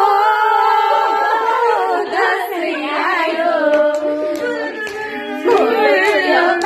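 A group of young women singing a Nepali song together, holding long notes.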